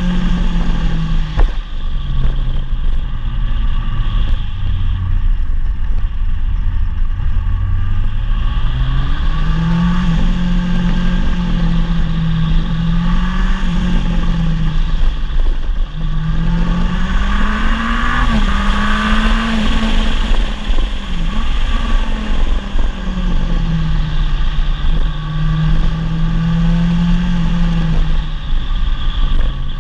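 Rally car engine pulling hard through the gears, its revs climbing and dropping again and again with each shift and lift on a fast stage. A single sharp knock comes about a second and a half in.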